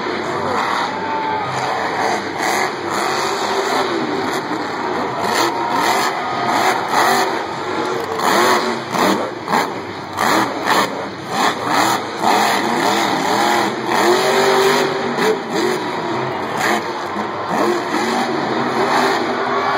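Grave Digger monster truck's supercharged V8 engine revving hard in repeated rising and falling bursts as the truck wheelies and jumps, with sharp bangs mixed in through the middle stretch.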